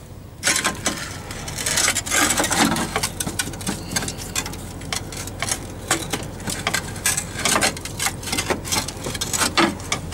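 Rapid, irregular clicks and knocks from hands handling metal parts and a hose on the tractor's steering cylinder close to the microphone, over a steady low hum.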